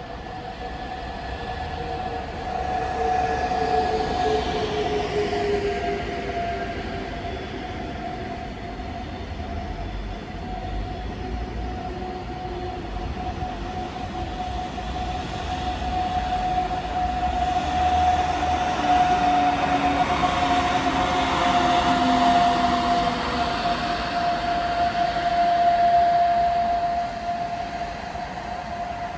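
Electric train with double-deck coaches running through a station. A whine falls steadily in pitch over about twenty seconds, over a steady higher tone and a rumble from wheels on the rails that swells twice as the coaches pass.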